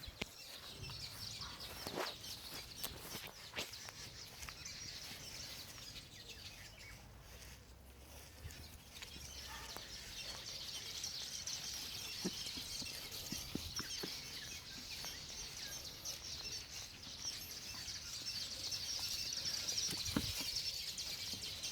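Birds chirping in a dense, high twittering chorus that grows louder in the second half, with a few soft knocks.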